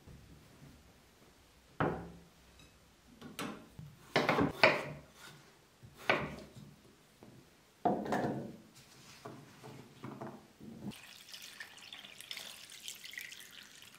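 Chef's knife cutting raw potatoes on a wooden cutting board: irregular sharp knocks of the blade striking the board. Near the end, water poured from a glass jug into a stainless steel pot of potato chunks, a steady splashing pour.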